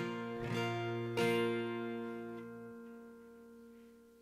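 Guitar chords strummed a few times in the first second and a half, then left to ring and slowly fade away.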